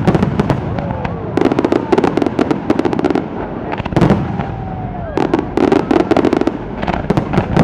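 Aerial fireworks bursting: a deep boom at the start and another about four seconds in, each followed by a spell of rapid crackling that lasts one to two seconds.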